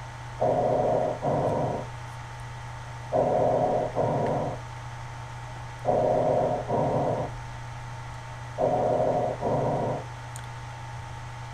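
Recorded chest auscultation sound of breathing, played back from a nursing training application. Four muffled breath cycles come about every two and a half to three seconds, each two rushes of sound close together, over a steady low hum.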